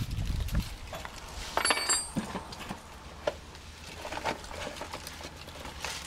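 Scattered light metallic clinks and clicks as car brake pads and their hardware are handled, with a short flurry of clinks about two seconds in.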